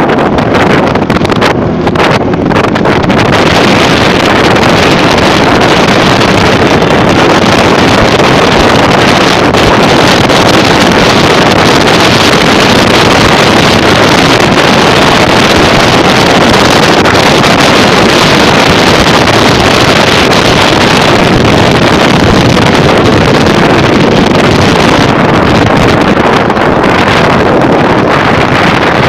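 Loud, steady wind rushing over the microphone of a phone carried on a moving motorcycle, mixed with the motorcycle's running engine.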